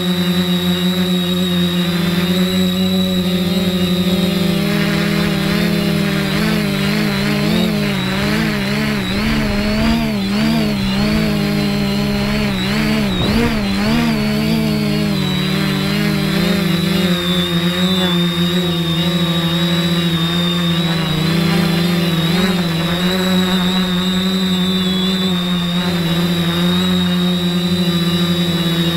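Quadcopter's four 2812 980KV brushless motors and 1045 propellers whining steadily as heard from the camera on its frame, hovering under GPS position hold. The pitch wobbles up and down for several seconds midway as the motors speed up and slow down, then steadies again.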